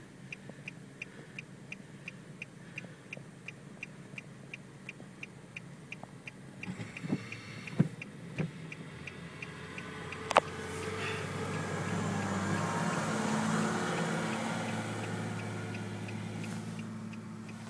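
Heard from inside a car, the diesel engine of a snowplow salt truck draws near, passes close by and fades, swelling to a peak in the middle of the passing. A steady fast ticking runs through the first half, and a few sharp knocks come as the truck approaches.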